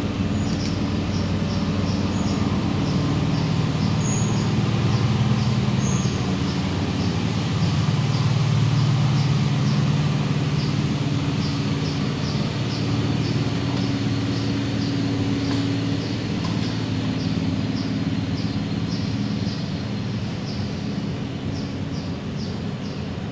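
A steady low engine drone that rises and falls slowly in pitch, with a short high chirp repeated about three times a second above it, in long runs with a few pauses.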